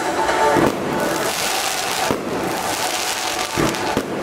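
Fireworks bursting overhead with continuous crackling and popping, and three sharper bangs about a second and a half apart.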